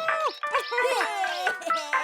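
Playful cartoon music score, with many short, quickly changing notes and sliding tones.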